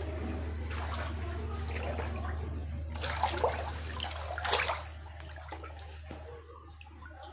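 Floodwater sloshing and splashing as someone wades across a flooded room, with louder splashes about three seconds and four and a half seconds in, over a steady low hum.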